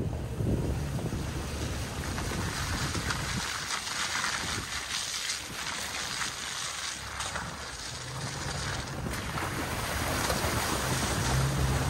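Steady rushing noise of wind and water, like wind on a microphone by the lake shore, with a low rumble underneath.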